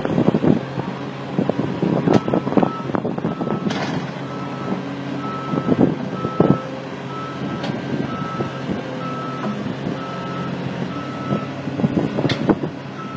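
Caterpillar 330D tracked excavator with its travel alarm beeping steadily, about twice a second, over the diesel engine's running hum. Repeated metallic clanks and knocks come from the tracks and machine, loudest about six seconds in and near the end.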